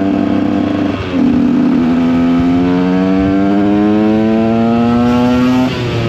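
KTM 125 EXC two-stroke single-cylinder engine pulling hard under load. There is a short break in the engine note about a second in, then the pitch climbs steadily for several seconds and drops sharply near the end.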